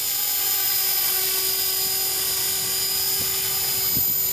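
T-Rex 450 Pro electric RC helicopter in flight: a steady high-pitched whine from its motor and rotor blades.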